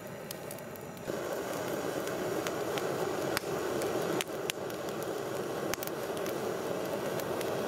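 Campfire burning: a steady hiss with scattered sharp crackles, stepping up in loudness about a second in.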